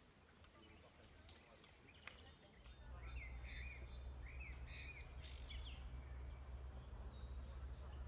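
Wind buffeting the microphone as a low rumble that starts about a third of the way in, with a few short bird chirps over it in the middle.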